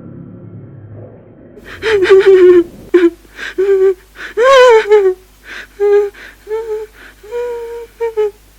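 A low rumble for about the first second and a half, then a voice giving about ten short, high-pitched cries, the longest near the middle rising and then falling in pitch.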